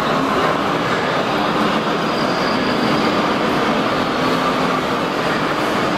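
N gauge model trains running on an exhibition layout: a steady running and rolling noise, heard over the even background of the exhibition hall.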